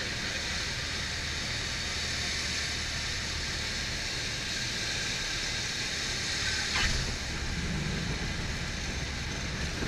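Cabin noise of a Cessna 172 in the landing phase: the four-cylinder piston engine and the airflow make a steady drone and rush, with a short thump about seven seconds in.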